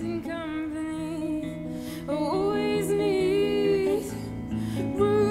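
Outro music: a song with a sung melody over plucked guitar.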